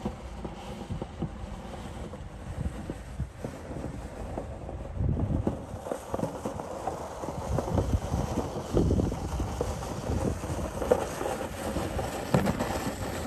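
A snow pusher blade on a hand truck scraping heavy wet snow along a brick-paver walkway, with the hand truck rolling. The scraping and knocking is rough and irregular, and it grows louder about five seconds in as the pusher comes closer.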